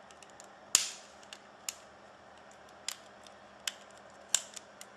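Sharp plastic clicks and snaps of a BlackBerry Torch 9800's bezel clips coming loose as the bezel is prised off. Two louder snaps come about a second in and near the end, with several lighter clicks between.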